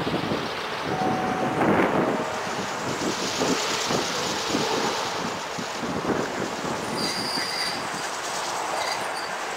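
SM42 diesel-electric shunting locomotive running light past on station track, its engine running and wheels knocking over the rails. The wheels give short, thin, high-pitched squeals about seven seconds in.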